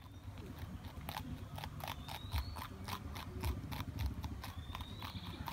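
Porcupine chewing a leafy green leaf: quick, crisp crunching bites, about four a second.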